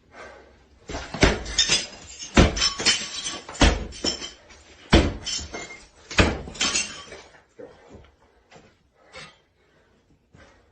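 Sledgehammer smashing a newly built tiled shower: about five heavy blows a little over a second apart, each followed by breaking and clattering debris, then scattered smaller knocks near the end.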